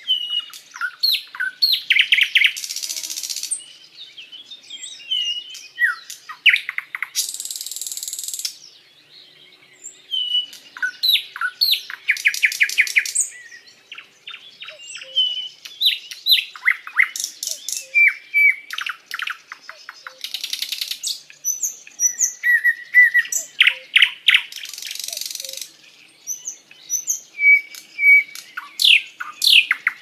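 Nightingale (sikatan londo) singing a long, varied song: phrases of rapid repeated notes and whistled slides mixed with harsh rattling notes, broken by short pauses.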